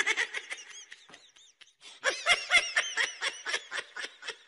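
Pet budgerigar chattering: fast runs of short, high chirps and warbles in two dense bursts, the second beginning about two seconds in, thinning out near the end.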